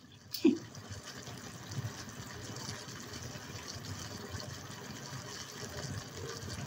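Kangkong simmering in a watery sauce in a frying pan: a steady, quiet bubbling hiss. A brief vocal sound about half a second in.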